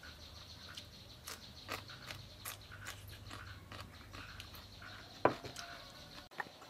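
Quiet eating sounds: small clicks and taps of fingers and food at a ceramic bowl, with chewing. A little past five seconds comes one sharp knock, the bowl being set down on the wooden table.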